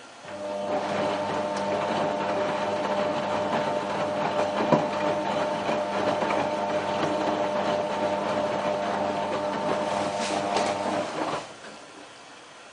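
Whirlpool AWM4066 washing machine working at the start of its cottons prewash programme. A motor or pump inside runs steadily for about eleven seconds, a whine of several steady tones over a hiss, then cuts off suddenly.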